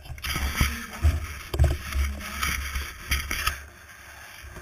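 Wind buffeting the microphone of a handlebar-mounted action camera, a low rumble with a hissing gust that eases off near the end, and a few light knocks and rattles from the bike and its mount.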